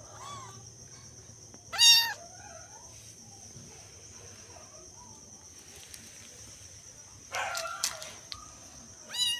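Young kittens meowing in high-pitched cries: a loud meow about two seconds in, a fainter one at the start, and more meows near the end.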